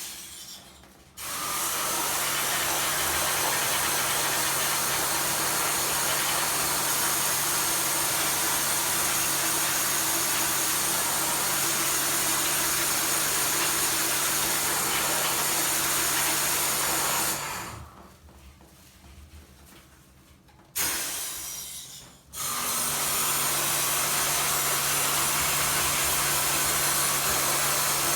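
High-pressure washer spraying water during air conditioner cleaning: a steady hiss of spray over the pump's low hum. It stops about 17 seconds in, gives a short burst a few seconds later, then runs steadily again.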